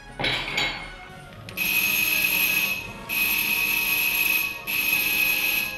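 An electronic ringer sounding a high, buzzing ring three times in a row, each ring about a second and a half long with short breaks between. A short sudden burst of noise comes just before the first ring.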